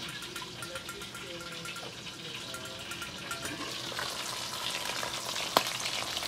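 Fish frying in hot oil in a stainless steel pan, a steady sizzle that grows louder toward the end, with one sharp click about five and a half seconds in.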